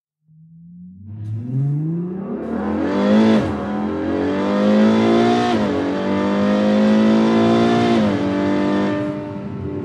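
Ferrari FF's V12 accelerating hard through the gears of its dual-clutch gearbox: the engine note climbs steadily, drops sharply at each of three quick upshifts, and climbs again after each one.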